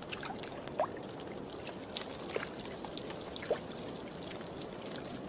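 Shallow meltwater trickling and lapping at a thawing ice edge, with scattered small splashes and drips as a grizzly bear feeds on a frozen fish at the water's surface.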